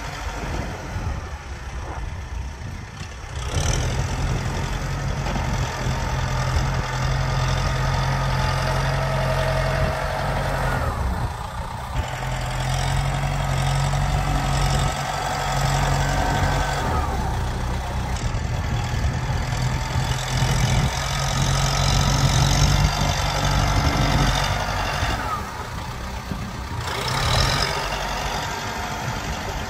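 Kubota M7040 tractor's four-cylinder diesel engine running under load while its front blade pushes soil. It grows louder about four seconds in, and its note dips and shifts in pitch a few times as the tractor changes direction or throttle, easing off near the end.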